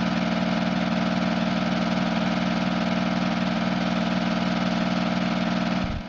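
Film projector sound effect: a steady mechanical whir with a fast, even flutter, the running of an old movie projector.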